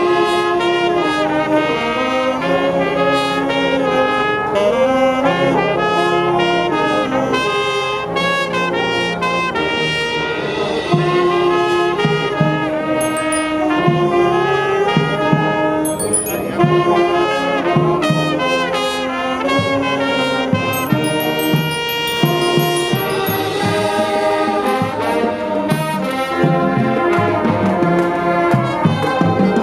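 Marching band playing live, brass and saxophones over drums: trumpets, trombones and sousaphones carry the tune at a steady, loud level.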